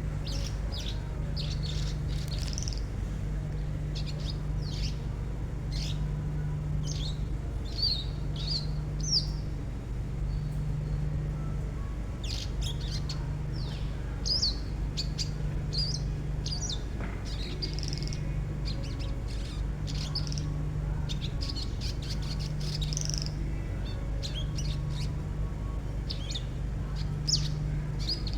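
Songbird giving harsh, tightly spaced 'tembakan' chirps: short, sharp high notes in quick runs with brief gaps. A low hum swells and fades underneath about every second and a half.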